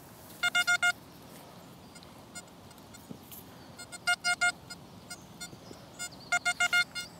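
XP Deus metal detector beeping as handfuls of dug soil are passed over its coil to pinpoint the target, a shotgun cartridge case. Short beeps all on the same pitch come in quick bursts of three to six, about two seconds apart, with one faint single beep between.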